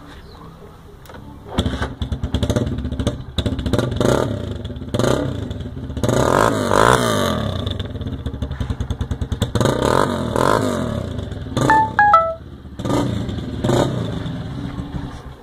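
Honda Titan 150's single-cylinder four-stroke engine idles, then is revved in repeated blips through an exhaust fitted with a popper (estralador), crackling and popping as the revs fall. The highest revs come about halfway through.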